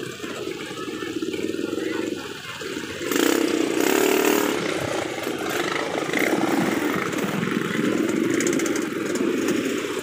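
Motor scooter and motorcycle engines running and idling in slow, packed traffic. About three seconds in, a louder burst of noise lasts about a second and a half.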